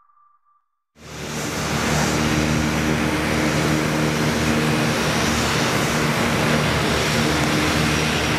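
Saab 2000's twin Rolls-Royce AE2100 turboprop engines running steadily as the airliner taxis: a constant propeller drone with several low hum tones over a broad hiss. It sets in about a second in, after a brief silence.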